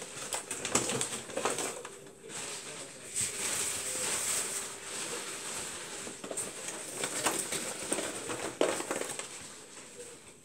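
Brown paper bag crinkling and rustling as popcorn is shaken out of it into a bowl, with an irregular patter of popped kernels dropping in.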